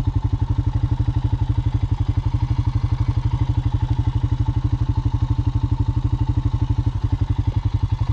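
Vehicle engine running steadily, with an even, rapid low throb.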